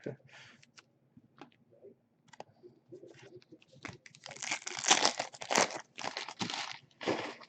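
Scattered light clicks of cards being handled, then about three seconds of crinkling and tearing from the plastic wrapper of a trading-card pack in the second half.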